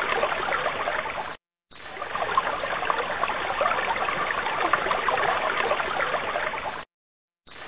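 Water flowing and babbling in a stream, steady and busy with small splashes. It drops out abruptly to complete silence twice, each time for well under a second: once about a second and a half in, and once near the end.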